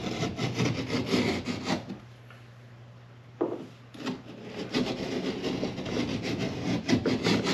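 A hand tool being worked back and forth to cut into wood wall paneling, in quick repeated strokes. The cutting stops about two seconds in and starts again about a second and a half later.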